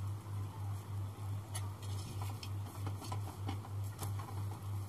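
A low electrical hum that pulses evenly about four times a second, with faint, scattered crackles from a ghee-brushed paratha cooking on a hot tawa.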